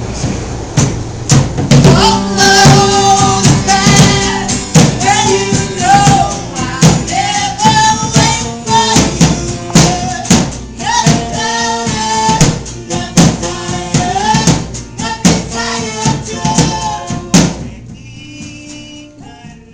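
Live band playing a song: a drum kit keeps a steady beat under a bending melodic line. The full band drops out about two seconds before the end, leaving a quieter passage.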